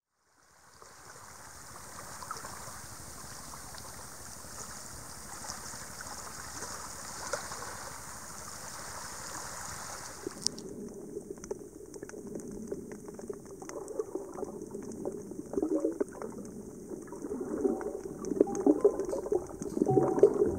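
Shallow seawater lapping and trickling at the surface, fading in from silence. About ten seconds in, the sound turns abruptly dull and muffled as the microphone goes under water, with low underwater sloshing and a crackle of small clicks that grows louder near the end.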